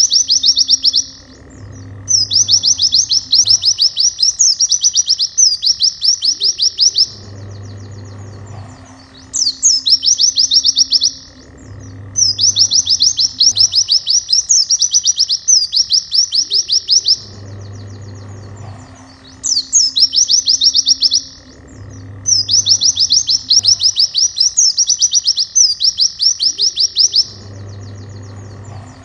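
White-eye (pleci) song: stretches of very fast, high trills, each opened by a quick downward-sweeping note and broken by short pauses. The same sequence repeats about every ten seconds over soft background guitar music.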